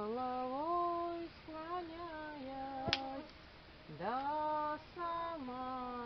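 A woman singing long, sliding held notes with no clear words, with one sharp crack of the campfire about halfway through.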